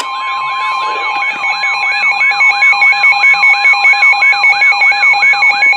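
Weather radio alert alarm: the NOAA Weather Radio 1050 Hz warning alarm tone held steady, with a lower tone pulsing and a warbling siren sweep that rises and falls about three times a second. It signals that a severe thunderstorm warning is about to be read.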